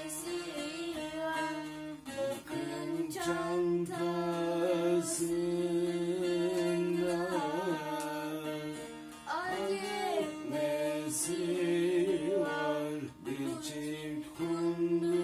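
Music: a voice singing a sliding, ornamented melody over plucked strings and long held low drone notes.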